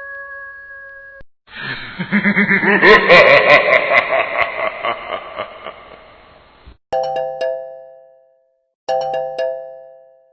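A run of phone notification tones. A steady held tone stops about a second in. Then comes a noisy sound effect of about five seconds with rapid clicks and wavering pitches that fades out, and last a short bright chime rings twice.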